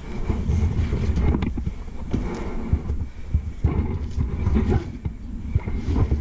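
Irregular knocks, bumps and rustling as a stump grinder is handled and shifted into place by hand, over a low rumble.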